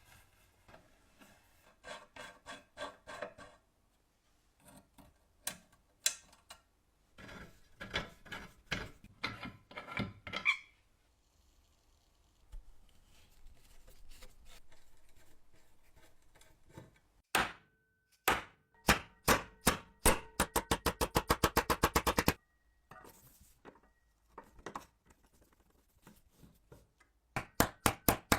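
1880s Alexanderwerk bread cutter being worked by hand, giving scattered knocks, rubbing and clicks of its metal parts. About two-thirds of the way in, a run of sharp, evenly spaced clicks speeds up to about ten a second, then stops; a similar run starts again near the end.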